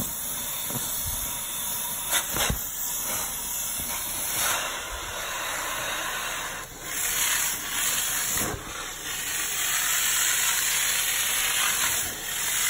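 Hot-water extraction upholstery tool on a vacuum hose working over a fabric sofa cushion: a steady high hiss of spray and suction. A few knocks of the tool come in the first couple of seconds, and the hiss grows louder about seven seconds in.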